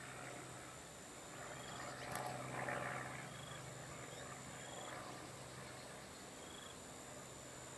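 Faint outdoor ambience with a low steady hum and a short high chirp repeating about every second and a half. A louder breathy rush comes about two to three seconds in.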